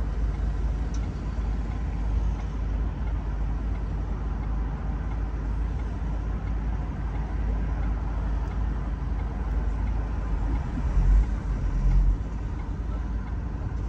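Steady low rumble of a manual car on the move, engine and road noise heard from inside the cabin, with two brief louder low thumps near the end.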